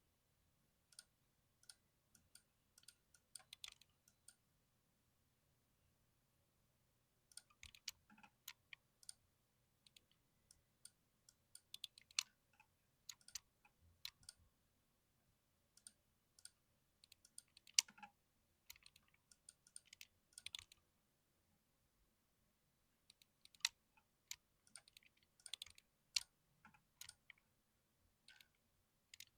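Typing on a mechanical keyboard: irregular runs of sharp key clicks, broken by short pauses of a second or two.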